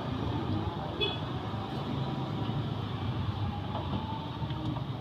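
Steady rumble of street traffic passing, with a short metallic clink about a second in.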